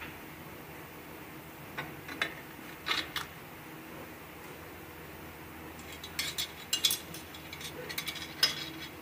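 Short metal clinks and clicks from the clutch drum and plates being handled inside the aluminium case of a Nissan RE4R01A four-speed automatic transmission. A few come about two to three seconds in, then a busier run of them from about six seconds on.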